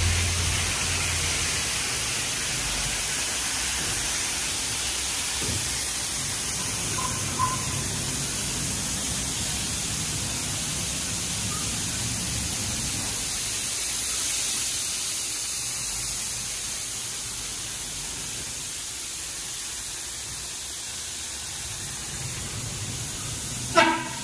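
PDQ LaserWash 4000 touchless car wash arm spraying the car: a steady hiss of spray, easing a little past the midpoint. A single sharp knock sounds near the end.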